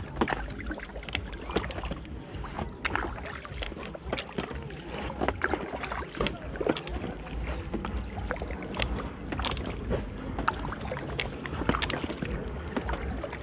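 Inflatable packraft being paddled: water splashes and drips from the paddle, with many short knocks and clicks at uneven intervals over a low, steady rumble.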